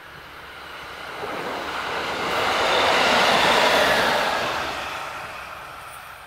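Single-car KiHa 40 diesel railcar passing close by, its engine and wheel noise swelling to a peak about three to four seconds in, then fading as it moves away.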